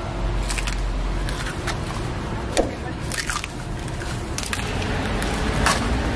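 Egg shells being cracked one after another against the rim of a metal egg-bread mold: a series of short, sharp cracks at irregular intervals over a steady low hum.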